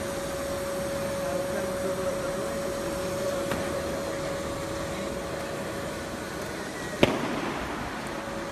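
Semi-automatic corrugated-box folder-gluer running: a steady mechanical hum with one constant tone through it. A single sharp knock sounds about seven seconds in.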